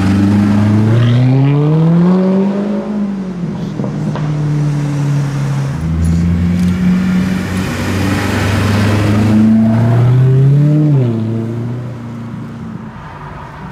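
Mercedes-Benz SLS AMG Roadster's V8 with a Hamann aftermarket exhaust, accelerating twice. The engine note climbs for about two seconds and falls back. It climbs again from about six seconds in, then drops off sharply around eleven seconds and settles to a quieter, steady running note.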